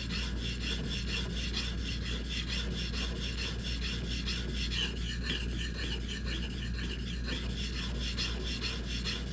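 Steel plane iron rubbed in quick, even back-and-forth strokes on an oiled honing stone, a steady gritty scraping. The blade is held at a slightly steeper angle than the primary bevel, honing the secondary bevel.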